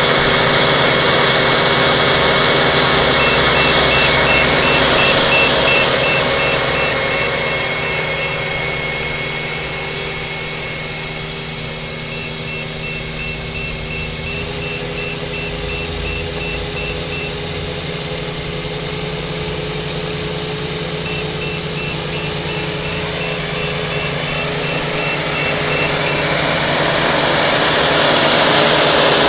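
Brushless electric motors and propellers of a Y6 tricopter whirring at a steady speed while it sits on the ground without lifting off, fainter in the middle and louder again near the end. Three runs of quick, high electronic beeps, about five seconds each, sound over the whir.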